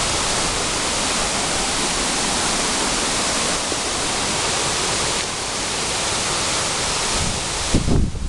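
Strong wind still blowing after a typhoon, a steady loud rushing with a choppy low rumble of gusts buffeting the microphone, and a heavier low thump of a gust near the end.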